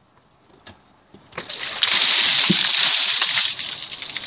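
A bucket of ice water tipped over a person's head, splashing over him and onto the ground. The rush of water builds about a second and a half in, is loudest for nearly two seconds, then trails off.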